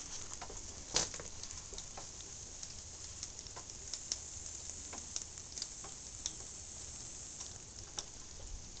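Large squash leaves rustling and brushing against the camera as it moves among them: a faint crackling with scattered clicks, the sharpest about a second in.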